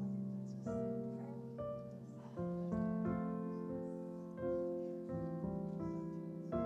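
Piano playing slow, held chords, with a new chord struck roughly once a second.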